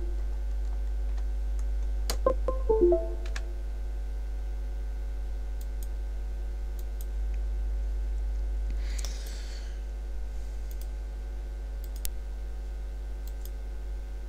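Short Windows device-connect chimes about two to three seconds in, as a USB keyboard that has stopped responding is unplugged and plugged back in. Scattered light clicks follow over a steady electrical hum, with a brief rustle about nine seconds in.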